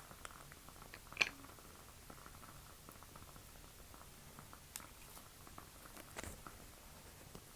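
Quiet room with faint, scattered small clicks and ticks. A sharper click about a second in has a brief ringing tone, and fainter ones come near the end.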